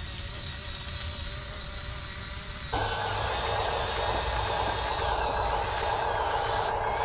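Radio-controlled Volvo EC160E model excavator running with a steady mechanical hum. About three seconds in it turns abruptly much louder and fuller.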